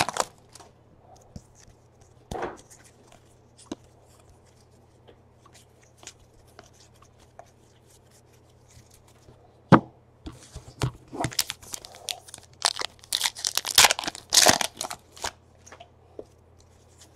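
Baseball cards and a torn foil pack wrapper being handled. A few soft ticks and rustles come first, then, from about ten seconds in, a run of crackly rustles and snaps.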